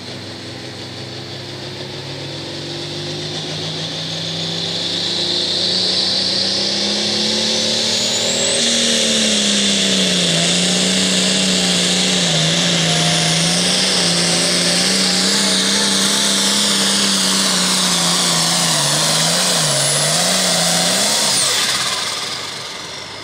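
Turbocharged diesel pulling tractor making a run down the track. Its engine revs build over the first few seconds, then it runs loud and high under load for about fifteen seconds with a high turbo whine over it, the pitch sagging and recovering twice as it drags the sled. It backs off sharply near the end.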